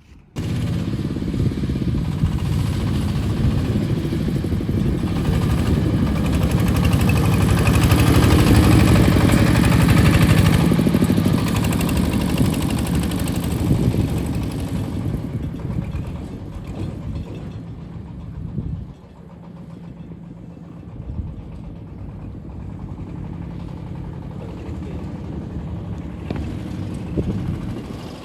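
Dong Feng diesel engine driving a corn sheller runs loudly. It comes in abruptly right at the start, is loudest at around eight to eleven seconds, and drops noticeably in level about nineteen seconds in.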